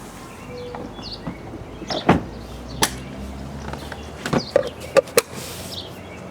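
A string of sharp knocks and clacks, about six over three seconds, the loudest near the end.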